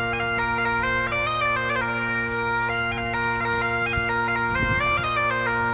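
Background music: a bagpipe-style tune of held notes stepping up and down over steady unchanging drones.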